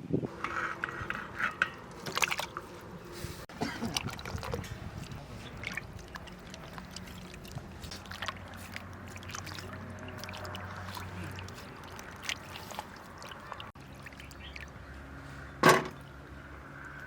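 Water poured and sloshing in kitchen vessels, with scattered clinks and knocks of utensils; the loudest is a sharp knock near the end.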